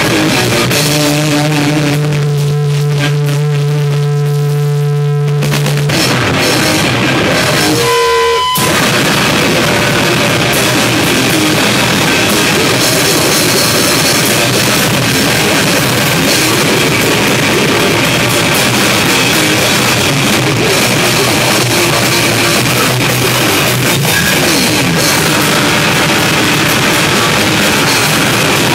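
Live rock band playing loud on drum kit with cymbals, guitar and bass. It opens with held low notes ringing for several seconds, then after a brief break about eight seconds in, the full band plays on.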